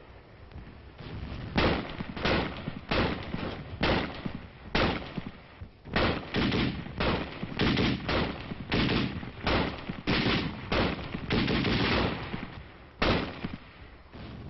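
Gunfire on an old film soundtrack: a long run of sharp single shots about two a second, starting about a second and a half in and thickest in the middle, with a last shot near the end.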